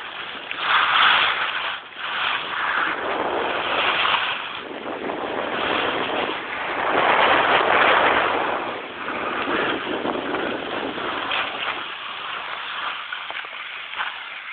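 Rushing scrape of edges sliding and carving over packed snow on a downhill run, swelling and easing with each turn and loudest about seven to eight seconds in, mixed with wind rush.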